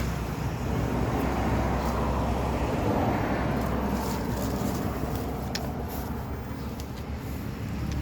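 A road vehicle passing by: a rushing noise that swells a couple of seconds in and then fades away.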